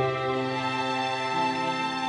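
Slow, gentle background music of sustained notes that change in pitch every second or so.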